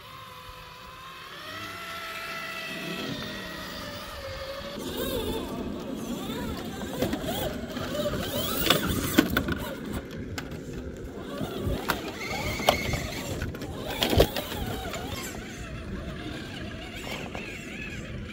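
Electric 1/10-scale RC crawlers: a motor and gearbox whine rising in pitch as one truck creeps along, then a crawler grinding over rocks with scattered sharp knocks and clacks, the loudest about 14 seconds in.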